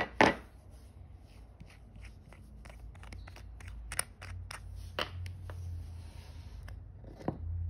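Fingers turning the loosened metal screw-down caseback of a Citizen diver watch: light clicks, ticks and scraping as the watch is handled, with two sharp knocks right at the start and another near the end.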